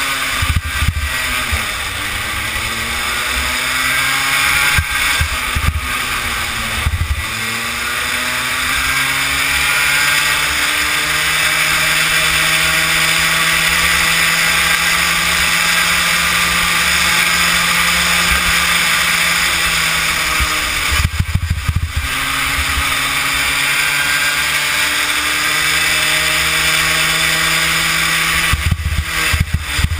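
Kid kart engine heard close up from on board while racing, its pitch climbing for long stretches along the straights and dropping sharply several times as the kart slows for corners.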